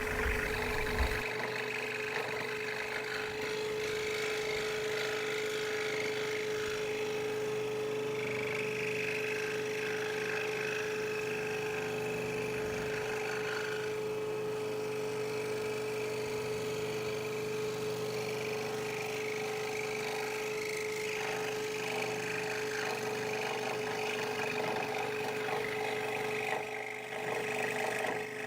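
Electric scroll saw running at a steady pitch while its blade cuts wood, making tight turns. The cutting noise rises and falls as the work is fed, with a brief dip near the end.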